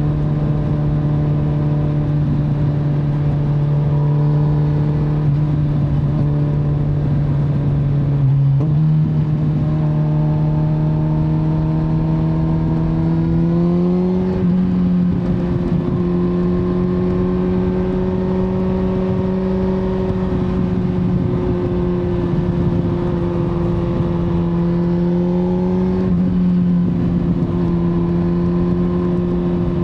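Kawasaki Z900 inline-four engine running steadily while riding, its pitch stepping up twice, about a third of the way in and again near the middle, with wind and road noise underneath.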